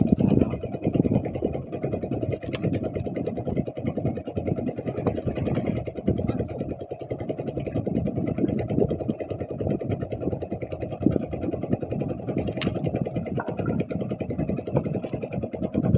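Small boat engine running steadily, a fast even chugging.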